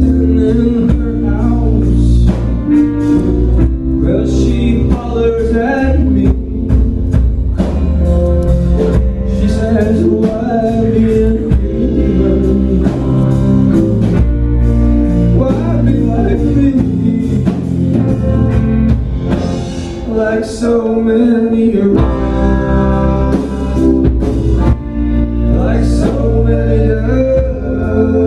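Live rock band performance: singing over guitar and a drum kit.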